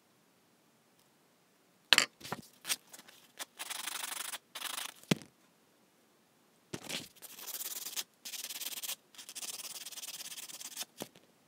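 A sanding stick rubbing back and forth on a small steel jump ring, smoothing the closed join, in several long strokes of rasping noise. The strokes are preceded by a few sharp clicks about two seconds in, the loudest sounds here.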